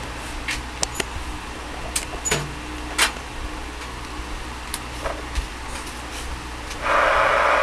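Scattered clicks and knocks as a Cobra 29LX CB radio is handled and its knobs are turned, over a steady low hum. Near the end the radio's speaker comes on with loud, steady static hiss as it sits in receive.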